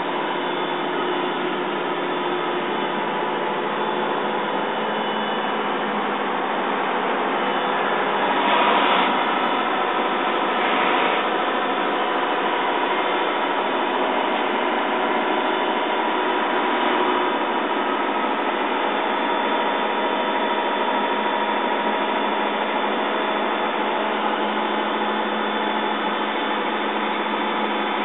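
Mercedes-Benz LP 808 truck driving, heard from inside the cab: a steady engine drone mixed with road noise. It swells briefly twice, about a third of the way in.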